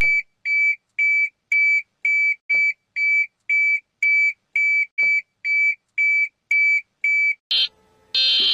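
Electronic emergency alert tone: a run of short, high-pitched beeps of one steady pitch, about two a second. Near the end it switches to a louder, harsher alarm tone.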